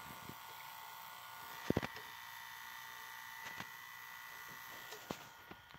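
Sony SLV-D350P VCR mechanism playing a VHS tape with its cover off: a faint steady whine from the spinning video head drum and tape transport, with a few soft clicks.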